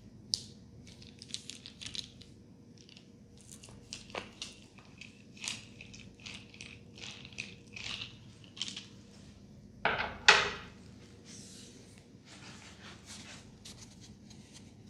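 Hands rubbing and scrunching hair and scalp during a head massage: irregular short scratchy rustles, with a louder double rustle about ten seconds in.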